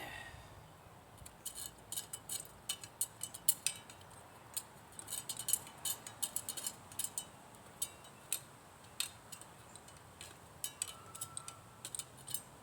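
Light metallic clicks and clinks, many in an irregular quick series with short gaps, typical of metal tools and a crucible knocking together while molten scrap metal is handled.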